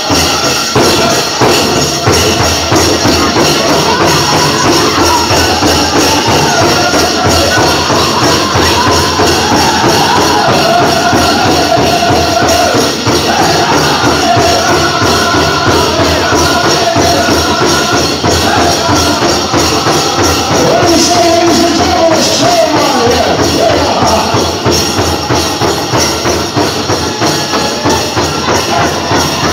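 Powwow drum group singing a men's chicken dance song over a steady drumbeat, with the dancers' bells jingling.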